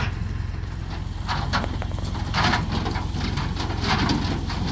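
An engine idling with a steady low rumble, with scattered light knocks and rustles over it.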